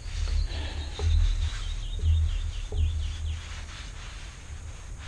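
A songbird sings a falling series of clear whistled notes. The notes come quick at first, then slower and slurred downward, over a low rumble on the microphone.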